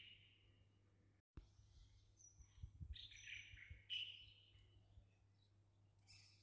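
Faint chirping of small birds: a few short calls and brief high whistled notes, the loudest about four seconds in, with a few soft low knocks just before it.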